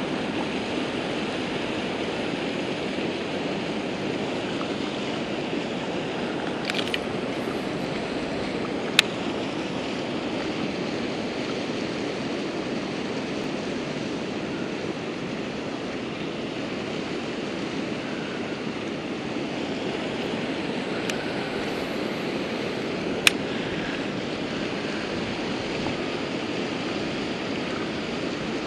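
Steady rush of river water pouring over a low concrete spillway dam and churning below it. Two sharp clicks cut through it, about nine seconds in and again about fourteen seconds later.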